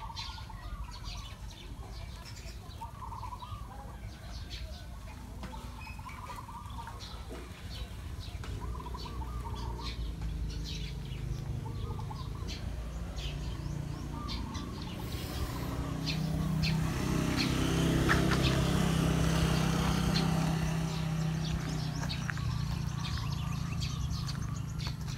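Birds chirping and calling, with short warbling calls repeating through the first several seconds. A low droning hum builds from about a third of the way in, is loudest a little past the middle, and eases off toward the end.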